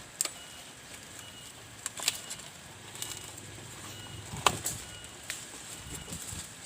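Forest ambience: a steady hiss with short, high chirps repeating every second or so, broken by several sharp clicks and knocks, the loudest about two-thirds of the way through.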